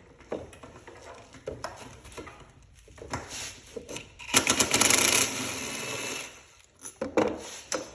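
Ratchet wrench with a 10 mm socket and extension clicking in rapid runs while backing out a throttle body mounting bolt; the longest, loudest run is about halfway through, with shorter bursts near the end.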